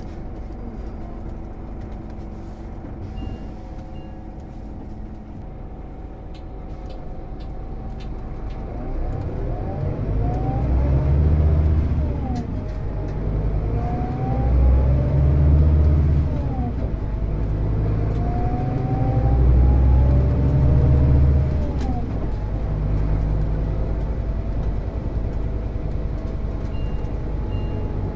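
Scania Citywide Interurban bus engine and drivetrain heard from on board. It runs steadily at first, then pulls away with the engine note rising. The automated manual gearbox shifts up three times, each shift a short break in the rise, before the bus settles into a steady run.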